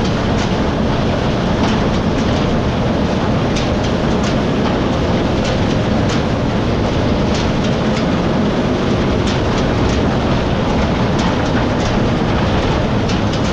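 Farm machinery running steadily, with irregular sharp clicks and rattles over the engine noise.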